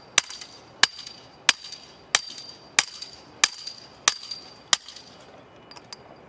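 Hand post pounder driving a metal greenhouse corner post into the ground: eight sharp metal-on-metal blows, about one and a half a second, each with a brief ringing, stopping about five seconds in.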